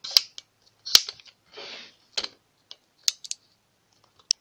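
A string of sharp clicks and taps with a short rustle about one and a half seconds in: handling noise from the camera being moved.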